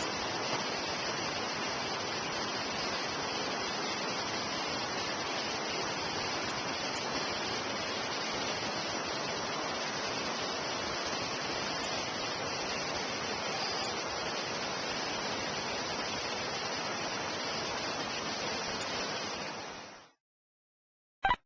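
Steady rushing, hiss-like noise with no rhythm, cutting off abruptly near the end, followed by a brief click.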